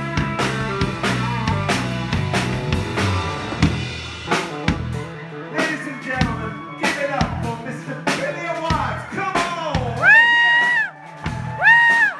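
Live band playing, with electric guitars and a drum kit hit with sticks. About four seconds in, the low bass drops away, leaving sparse drum hits and guitar lines, with a few loud, high held notes near the end.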